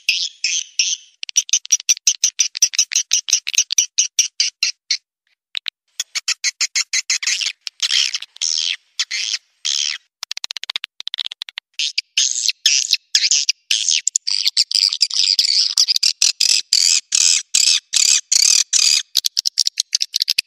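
Edible-nest swiftlet calls: rapid trains of short, high chirps in quick repeated bursts, with a brief pause about five seconds in. This is a lure call played to draw swiftlets in to roost.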